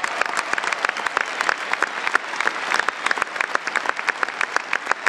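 Large arena crowd applauding steadily, with sharp individual claps from people close by standing out of the general clapping.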